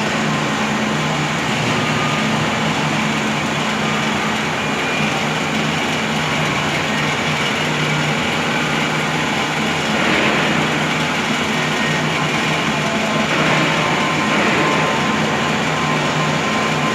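SMAW (stick) welding machine running: a steady low electrical hum under a dense, even hiss, a little louder around ten seconds in and again a few seconds later.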